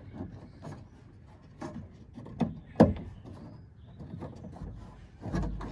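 Scattered small clicks and knocks of metal and plastic parts inside a car door as a hand pushes at the exterior door handle and its latch linkage to work it loose, with two sharper clicks about two and a half and three seconds in.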